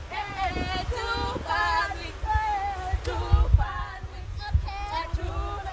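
A woman's voice singing a melody, with some notes held steadily for about half a second, over low thumps on the microphone.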